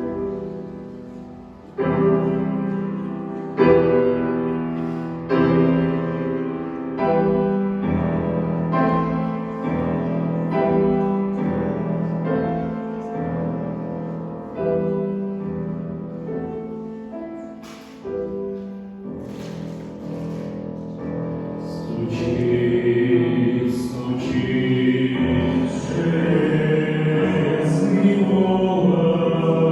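Christian hymn: a piano introduction of chords struck about every two seconds, then a choir begins singing about twenty seconds in, over the piano.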